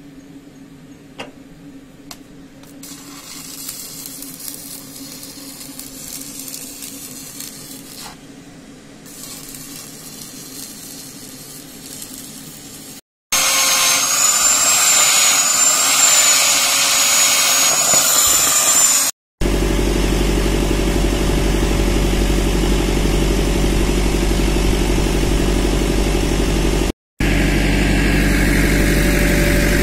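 A low steady hum with a few clicks, then an angle grinder whining for about six seconds with its pitch wavering as it cuts. After that comes a heavy excavator's diesel engine running steadily at idle.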